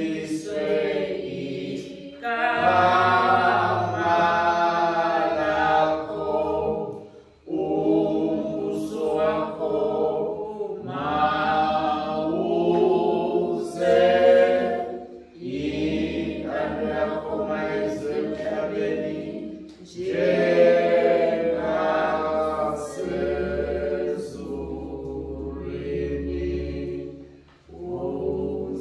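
Congregation singing a hymn without instruments, in long held phrases with short breaks for breath between them.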